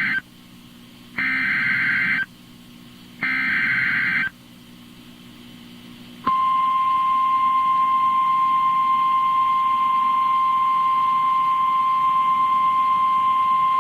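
An Emergency Alert System SAME header on NOAA Weather Radio: the end of one burst of harsh digital warbling, then two more bursts about a second long and a second apart. About six seconds in, the steady single-pitch Weather Radio warning alarm tone starts and holds, announcing a flash flood warning.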